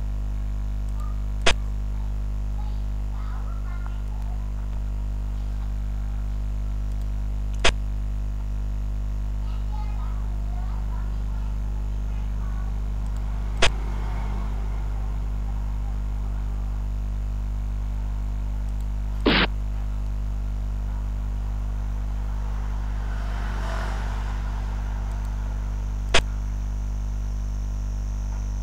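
Steady electrical mains hum under five sharp clicks about six seconds apart: the piece-move sound effect of a xiangqi (Chinese chess) program as each move is played on the board.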